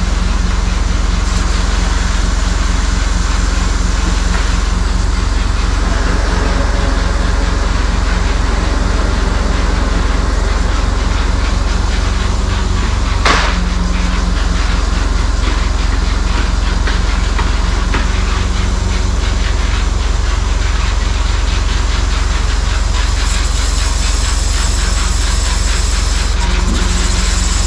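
Truck's diesel engine running steadily, driving the hydraulics of a truck-mounted loader crane as it lifts a load, with a constant low hum. A single sharp knock about halfway through.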